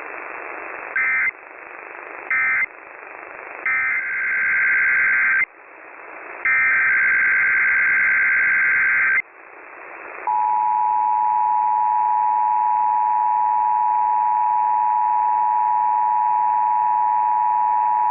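Emergency Alert System tones received over a hissing radio channel. First come two short bursts of the warbling digital data tones, then two longer bursts, the SAME header of the next alert. These are followed by the two-tone attention signal, held steady for about eight seconds.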